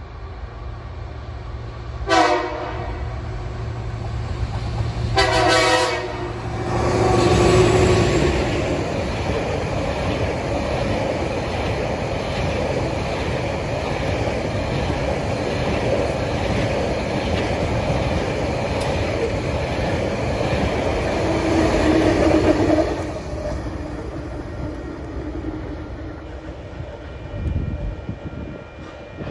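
TasRail diesel-hauled cement train passing close by: the locomotive sounds its horn twice, a short blast and then a longer one. The locomotives then pass loudly, and a long rake of cement hopper wagons follows, rumbling with wheels clicking over the rail joints, before the sound drops away.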